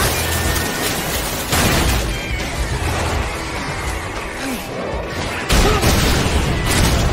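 Cartoon fight sound effects of heavy blows and crashing impacts over a dramatic orchestral score. Sudden hits land about a second and a half in and again about five and a half seconds in.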